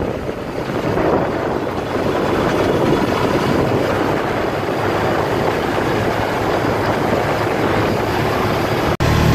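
UTV running along a trail, its engine buried under steady wind rush on the microphone. About nine seconds in the sound breaks off for an instant, then a steady low engine hum follows.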